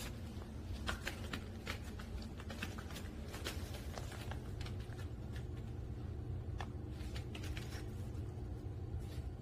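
Pungsan puppy's paws and claws pattering on a hard tiled floor: light, irregular clicks and taps as it walks about, over a steady low room hum.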